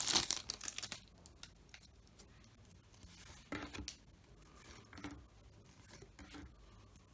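A baseball card pack's wrapper being torn and crinkled open for about the first second, then faint scattered rustles and taps of cards being handled.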